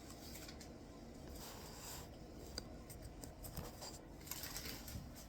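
Faint rustling and a few light clicks of a motherboard being handled and lifted out of its packaging.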